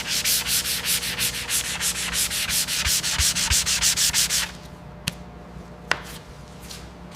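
Rapid, even back-and-forth abrasive scraping, about six strokes a second, over a low steady hum. The scraping stops about four and a half seconds in, followed by three sharp clicks.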